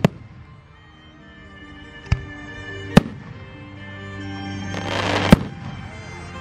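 Fireworks going off with four sharp bangs: one right at the start, one about two seconds in, one at three seconds, and the loudest at about five seconds, just after a second-long rush of noise. Music plays underneath.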